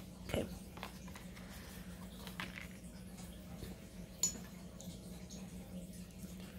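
Art supplies and paper being handled on a tabletop: a few faint light taps and rustles, over a steady low hum.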